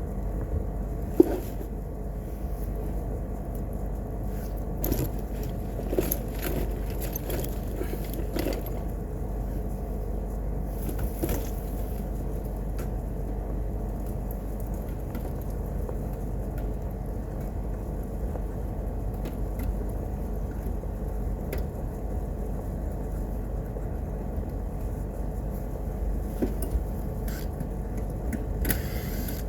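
Steady low machine hum with a few fixed tones, broken now and then by light clicks and knocks.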